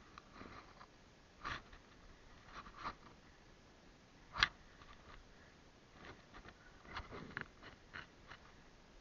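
Quiet, scattered rustling and small crackling clicks of movement through dry undergrowth, with one sharp click about four and a half seconds in.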